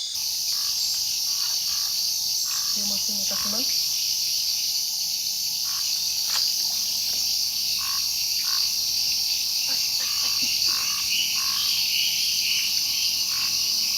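Night chorus of insects and frogs in the Amazon rainforest. A steady, loud, high-pitched insect buzz runs throughout, with short frog calls repeating about twice a second beneath it.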